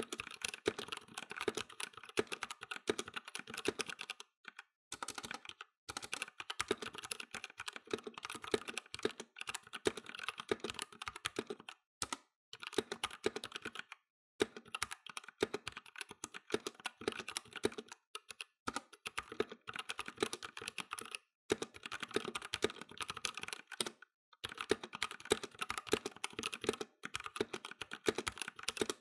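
Vortex VX87 modular mechanical keyboard being typed on quickly, a dense run of key clicks broken by short pauses every few seconds, picked up close above the keys.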